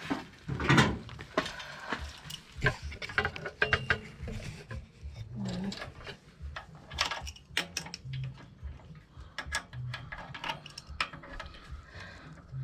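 A small wrench working a bolt on a steel lawnmower jack during assembly: irregular metal clicks, taps and clanks, scattered through the whole stretch.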